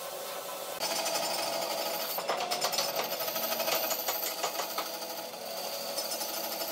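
Band saw running, its blade starting into a thick wooden block about a second in and cutting steadily through it.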